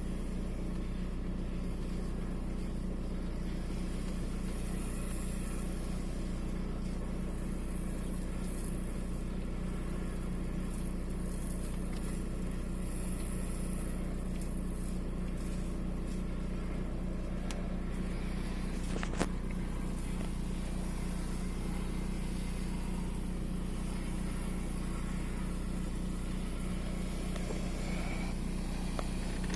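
Volkswagen 1.9 TDI AXR four-cylinder diesel engine idling steadily, the engine carrying an intermittent cylinder 4 misfire fault. A single short click sounds about two-thirds of the way through.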